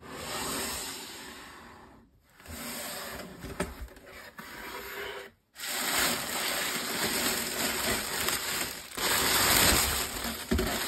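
Tissue paper rustling and crinkling as gloved hands unwrap a sneaker in a cardboard shoebox, breaking off abruptly twice, about two and five and a half seconds in.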